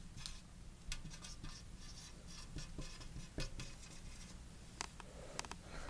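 Faint, scattered small clicks and rustles of small objects being handled.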